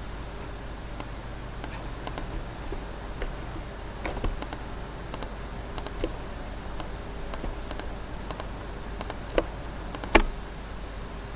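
Computer mouse clicking: scattered light clicks, with two sharper ones near the end.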